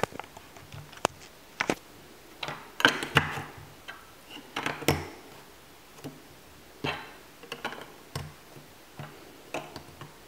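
LEGO Duplo plastic bricks clicking and clacking as they are pressed onto each other and set down on a table: a dozen or so sharp, irregular clicks.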